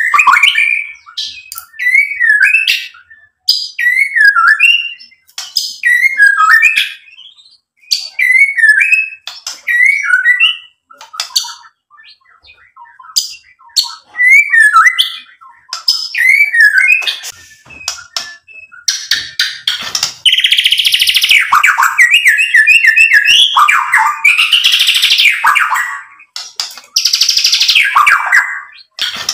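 White-rumped shama (murai batu) singing: short whistled phrases that rise and fall, one every second and a half or so. From about two-thirds of the way in they give way to longer, louder runs of fast rattling notes.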